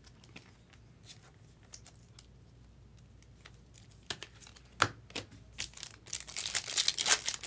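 A few light clicks and ticks of cards and a plastic top loader being handled, then from about six seconds in, a foil trading-card pack torn open with loud crinkling.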